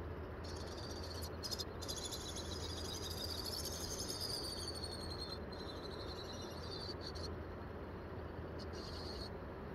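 High, rapid insect trilling that starts about half a second in, breaks off briefly a few times, and stops about seven seconds in, with two short bursts near the end, over a steady low outdoor background hum.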